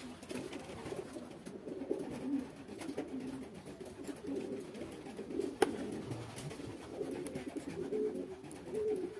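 Homing pigeons cooing continuously, low wavering calls overlapping one another, with a single sharp click a little past halfway.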